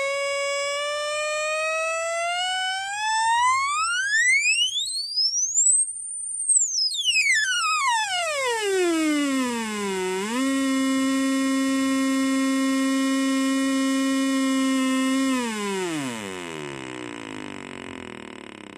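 Synthesized electronic tone rich in overtones. It glides slowly up to a very high pitch about six seconds in, then swoops back down. It holds a steady low note for about five seconds, then slides down and fades out.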